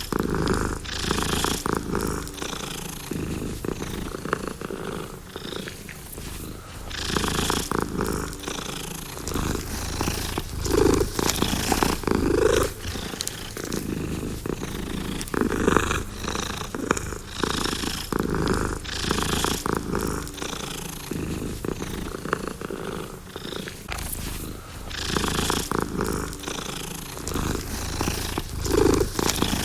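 Domestic cat purring, a continuous rattling purr that swells and eases with each breath in and out, every few seconds.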